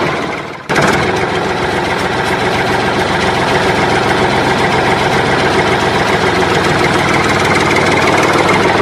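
Steady engine running at idle, likely a heavy-machine engine sound effect laid over the toy play. It dips out briefly just after the start and comes back abruptly, then runs on evenly.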